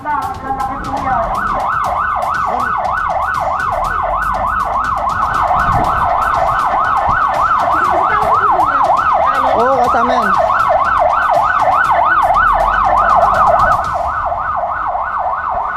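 Emergency siren in a fast yelp, its pitch sweeping up and down about four times a second without a break. It sounds during typhoon flooding, where sirens of passing barangay responders and rescuers serve as flood warnings.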